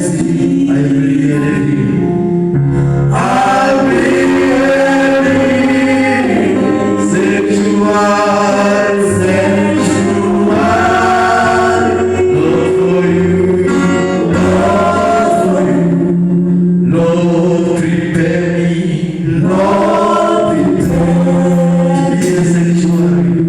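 Gospel choir singing with music, sustained voices in harmony.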